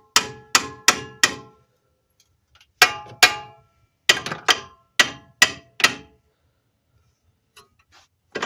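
Hammer striking the steel front-suspension parts of a BMW 528xi, knocking a part at the bottom loose. There are about eleven sharp, ringing metal strikes in three quick runs: four, then two, then five.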